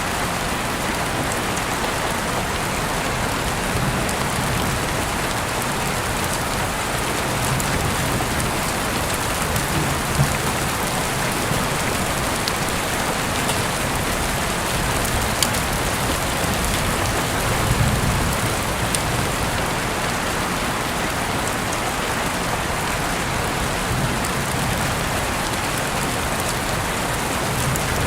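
Steady rain falling, an even hiss, with a few single sharp clicks about ten, fifteen and eighteen seconds in.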